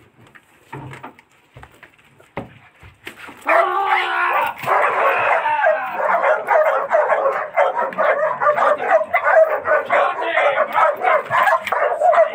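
Dog barking rapidly and without a break, starting about three and a half seconds in, during guard-dog bite training; before that only a few faint knocks.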